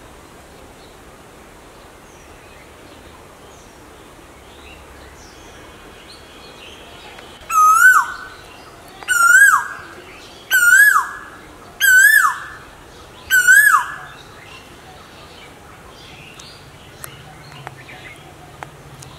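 Asian koel calling: five loud whistled notes about a second and a half apart, each rising in pitch and then dropping away sharply at the end.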